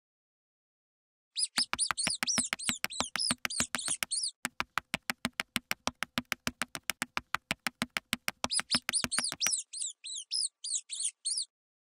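Cartoon mouse squeak sound effects: quick bursts of high-pitched squeaks, starting after a short silence and coming back near the end, with a fast, even patter of clicks, about ten a second, through the middle.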